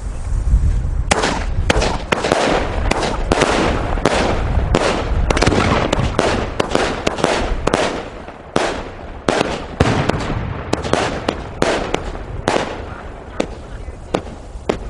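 Waynes World 225 Shot Flower Exhibition 1.3G firework cake firing. About a second in, shots start in rapid succession with dense crackle between them; past the middle they thin out to separate pops about every half second.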